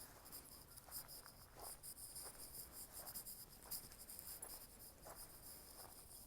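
Faint insects chirring in a steady pulsing high-pitched chorus, with faint soft scuffs or rustles at irregular intervals underneath.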